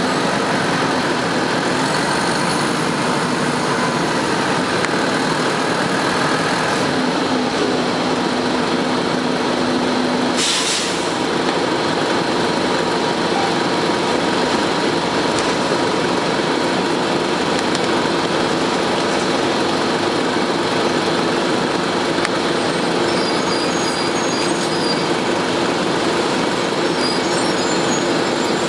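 Onboard sound of a 1998 Nova Bus RTS transit bus under way: its Detroit Diesel Series 50 four-cylinder diesel and Allison transmission running steadily under the air-conditioning noise. A short hiss comes about ten seconds in, and the engine note shifts around the same moment.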